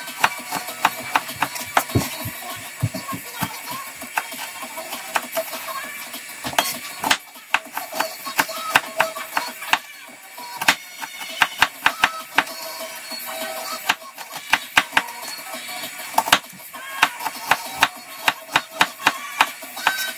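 Kitchen knife chopping garlic cloves on a plastic cutting board: quick runs of sharp taps with short pauses between them, over quiet background music.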